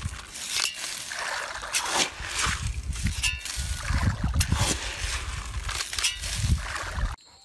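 Grain bait flung from a long-handled scoop pattering onto a lake's surface in repeated throws, under a strong rumble of wind on the microphone; the sound cuts off abruptly near the end.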